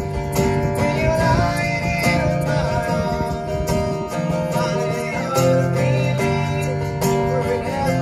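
Live band music: strummed acoustic guitar with singing, amplified through PA speakers.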